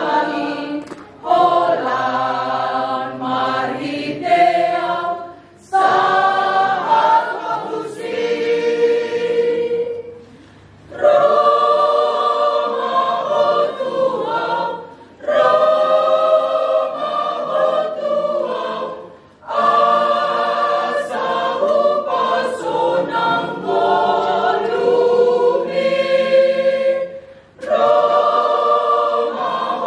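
Mixed choir of men and women singing a hymn together, in phrases broken by short pauses for breath every few seconds.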